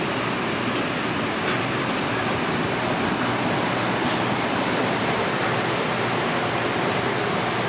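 Steady, even rushing noise with a few faint clicks.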